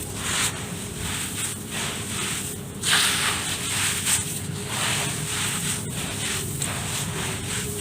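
Hands crumbling and mixing dirt in a tub: repeated gritty rustling strokes about twice a second, with one louder crunch about three seconds in.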